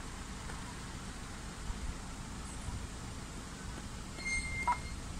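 Steady low outdoor rumble, with a short high-pitched squeal about four seconds in, followed by a brief click.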